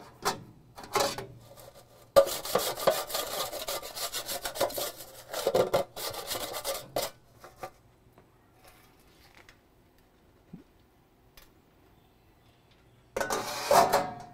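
Grill scraper rasping across a stainless steel drip tray in quick repeated strokes for about five seconds, loosening stuck-on grease and ash debris. After a quiet spell, a short burst of metal scraping near the end as the tray is set back into its slide-out drawer.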